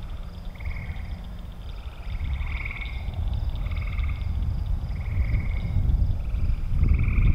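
Frogs calling at dusk: short trilled calls about half a second long, repeating roughly once a second. Under them runs a thin, steady, high pulsing buzz and a low rumble.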